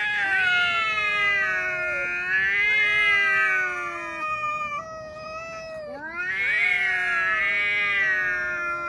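Two cats yowling at each other in a face-off: long, drawn-out, wavering threat calls that overlap at times. They ease off around the middle and swell again about six seconds in.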